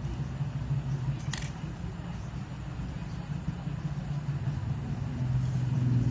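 JUKI industrial sewing machine's motor humming steadily, with one sharp click about a second in.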